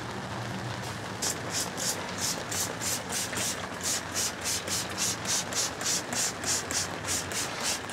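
Trigger spray bottle misting meat on a smoker grate in quick repeated squirts, about three or four a second, starting about a second in.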